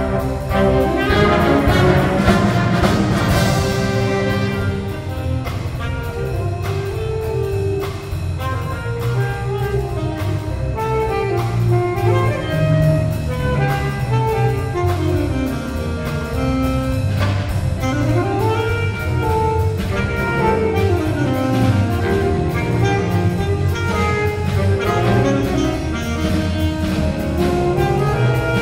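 Jazz band playing a blues: saxophones and brass over piano, bass and drum kit, with a steady cymbal beat. The full band is loudest for the first few seconds, then the sound thins to a single melodic line over bass and drums.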